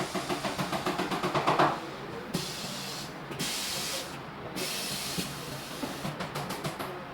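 A chair-strength testing machine working a wooden chair: a quick run of repeated knocks, about six a second and growing louder, then three bursts of air hissing, then another quick run of strokes near the end.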